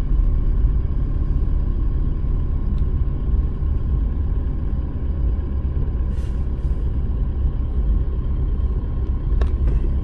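Steady low rumble of a car driving on a wet road, heard from inside the cabin, with a few faint clicks.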